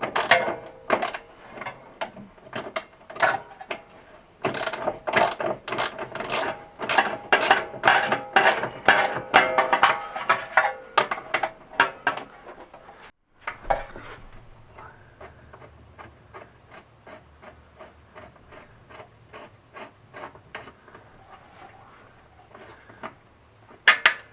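Ratchet wrench clicking in rapid back-and-forth strokes as an exhaust mounting bolt is backed out. The clicking is loud for about the first half, breaks off briefly, then goes on fainter and lighter until a loud burst near the end.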